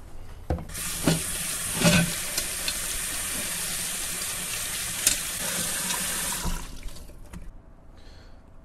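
Kitchen faucet running into a stainless steel sink while a grill plate is scrubbed with a sponge under the stream, with a few light knocks. The water comes on about half a second in and is shut off about six seconds later.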